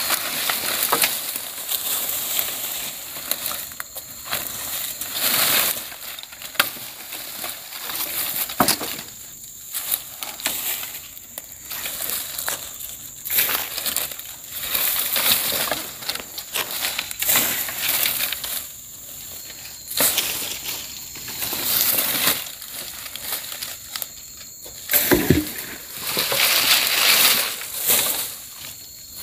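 Freshly cut leafy branches and brush rustling and crunching as they are pulled and dragged by hand, in uneven bursts every second or two with a few twigs snapping.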